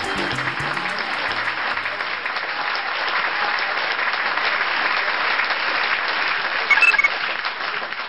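Theatre audience applauding steadily, with the tail of music dying away in the first two seconds. A brief, sharper sound about seven seconds in is the loudest moment, and the applause then fades out.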